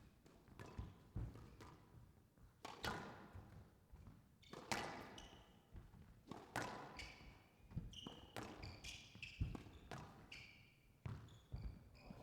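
Squash rally: the ball cracks off rackets and walls about every one to two seconds, with short squeaks from court shoes on the wooden floor in the second half.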